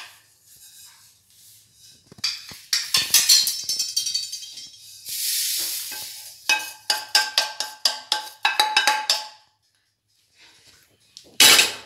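Roasted white sesame seeds being emptied from a steel kadhai onto a steel plate: a wooden spoon knocks and scrapes against the pan, with ringing metal tones after the knocks. About five seconds in the seeds pour out with a brief hiss, then comes a run of quick ringing taps, and a single loud clatter near the end.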